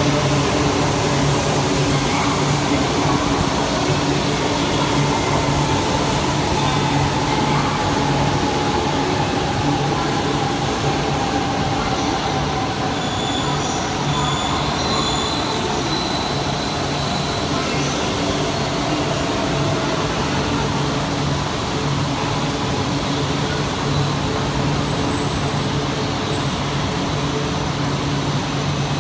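JR East E4 series Max double-decker Shinkansen, two coupled 8-car sets, rolling slowly along an underground platform. It makes a steady loud rumble with a motor whine that slowly falls in pitch as the train slows to stop.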